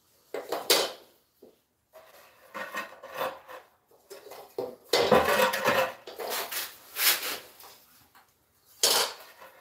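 Ceramic tile being handled and set on a tiled floor: hard clinks, knocks and scrapes in irregular bursts, busiest about halfway through, with a sharp clack near the end.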